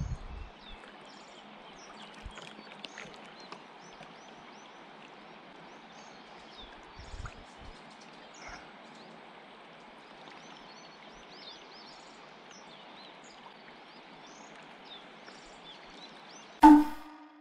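Steady rush of river water, with many small birds chirping over it. Near the end, a short loud tone sounds briefly and cuts off.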